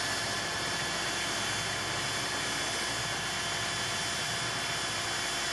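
DeWalt cordless drill running a spade bit into a wooden door, the motor holding a steady speed with a steady whine as the bit bores through the wood.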